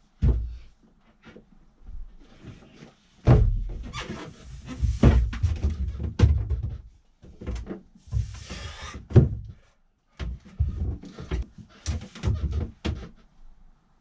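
Lead ballast pieces being set down and shifted on rubber padding in a small boat's hull: an irregular series of heavy thuds and knocks, with a brief rustle about eight seconds in.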